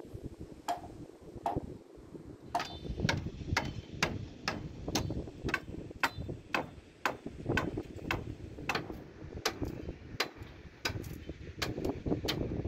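Hammering on a house under construction: a steady series of sharp hammer blows, about two a second and slightly irregular, some with a brief metallic ring as nails are driven.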